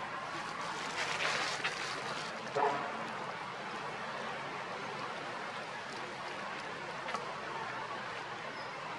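Steady outdoor background noise, with a brief rustle about a second in and a short, higher pitched call about two and a half seconds in.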